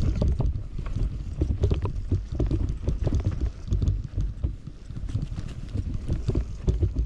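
Electric mountain bike riding fast down a dirt forest trail: tyres rumbling over the ground and wind buffeting the microphone, with frequent quick knocks and rattles from the bike over bumps.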